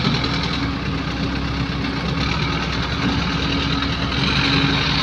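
Heavy-equipment diesel engine running steadily at idle, a constant low hum.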